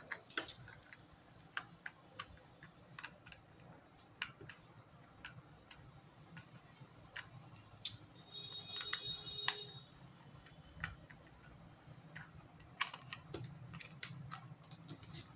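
Light, scattered clicks and taps of a small plastic LED-light controller box being handled and opened with a screwdriver, with a brief high squeak a little before the middle.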